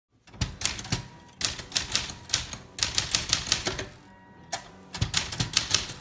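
Typewriter typing: quick runs of sharp keystroke clacks as the typebars strike the paper on the platen, broken by short pauses.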